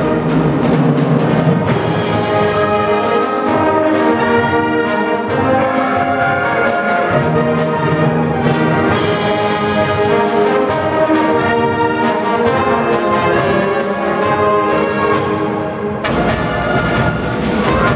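Concert wind band playing, brass and woodwinds sounding sustained chords; the low register comes in more strongly near the end.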